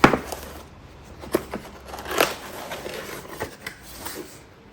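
Cardboard box being opened and handled: a sharp click at the start, then scattered rustles and light knocks as the flaps and contents are moved.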